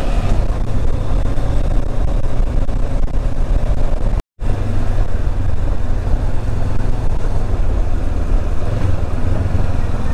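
Motorcycle engine running steadily while riding, under a heavy rush of wind on the microphone. The sound cuts out completely for a split second about four seconds in.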